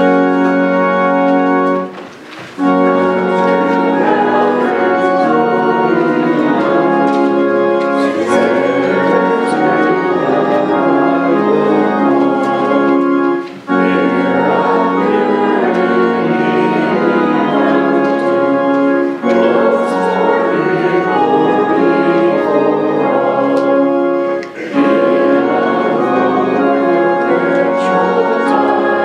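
Church organ playing a hymn in sustained chords, phrase by phrase, with brief pauses between phrases four times.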